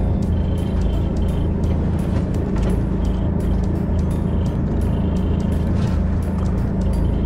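Fishing boat's engine running steadily, with background music over it.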